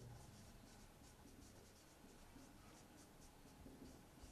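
Faint strokes of a marker pen writing on a whiteboard: a run of short, soft squeaks and scratches.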